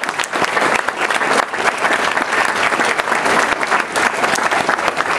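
Audience clapping steadily, a dense patter of many hands.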